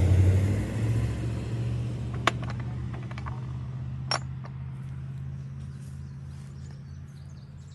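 A car engine rumbling close by, loudest at first and slowly fading as it moves off. Two sharp clinks, about two and four seconds in, from a small porcelain teapot and its lid being handled.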